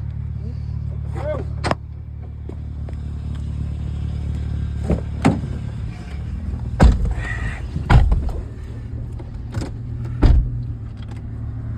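Vehicle engine running steadily at a low hum, with a handful of sharp knocks and clunks at irregular intervals.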